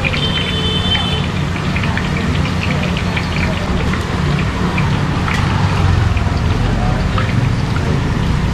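Idlis deep-frying in a large iron kadai of hot oil, the oil sizzling and crackling steadily over the low, steady roar of the gas burner, with a few sharp clinks of the iron skimmer against the pan.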